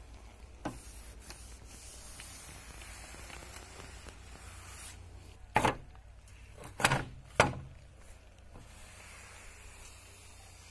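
Sharp knocks and clinks of a steel crosscut saw blade and its riveted handle bracket being handled on a wooden slat table: one light knock near the start, then three louder ones close together in the middle. A steady low rumble runs underneath.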